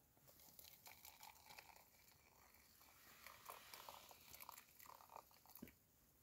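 Near silence, with faint scattered crinkling and light clicks, as of small camp cookware and a plastic bag being handled.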